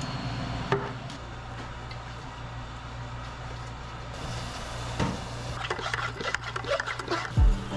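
Steady low hum with light handling knocks. About halfway in, the hiss of water spray starts on the clogged refrigerator condenser coil, with a run of clicks and knocks, and a heavy thump comes just before the end.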